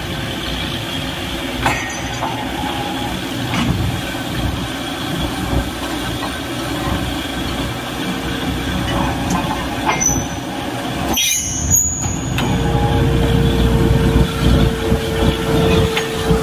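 Borewell drilling rig running: a steady, loud mechanical din with occasional sharp metallic knocks. About two-thirds of the way through it breaks off for a moment, then comes back louder with a steady whine over it.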